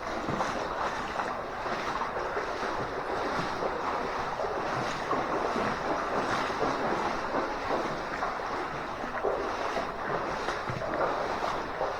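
Cave creek water rushing steadily.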